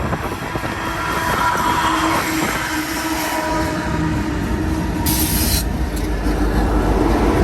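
A string of BNSF diesel locomotives, running together as a light-engine power move, rumbling past steadily with a few thin whining tones over the rumble. A brief loud hiss comes about five seconds in.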